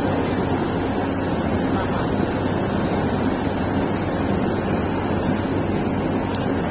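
Excavator's diesel engine running steadily: a low hum under a steady rushing noise.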